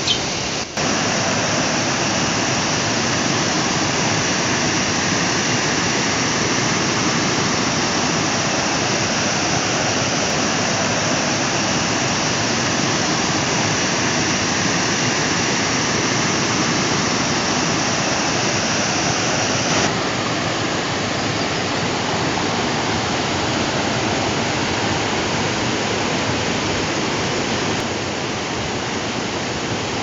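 Creek water cascading fast over sloping rock slabs: a loud, steady rushing roar.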